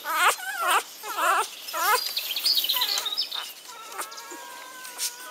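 Four-day-old Belgian Malinois puppy crying while held, with several high wavering squeals in the first two seconds and a longer steady whine near the end.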